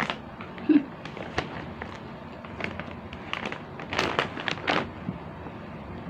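Crunching of chicharon (pork rinds) and the crinkle of the plastic snack bag as a hand reaches into it: a scatter of sharp crackles, with a louder cluster about four seconds in.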